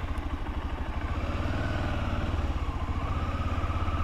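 Motorcycle engine running steadily at low revs with an even, rapid low throb.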